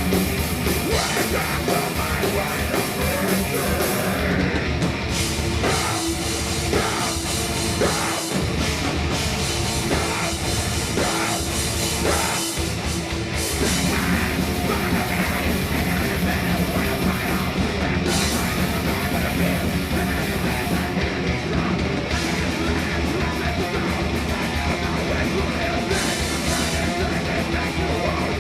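Thrash metal band playing live: distorted electric guitars, bass and a drum kit, with shouted vocals, loud and continuous.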